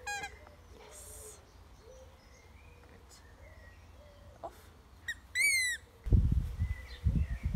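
Rubber squeaky ball squeaking under a dog's paw as it is pressed: a short squeak right at the start and a louder falling squeak about five seconds in. Low rumbling noise follows from about six seconds in.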